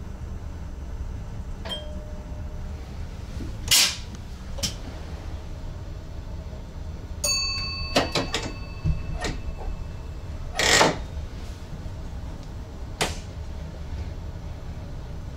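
Cab interior of an NS ICM (Koploper) electric train running: a steady low rumble with scattered clicks and knocks. Two louder short rushes of noise come about four and eleven seconds in, and a bell-like ding rings out about seven seconds in.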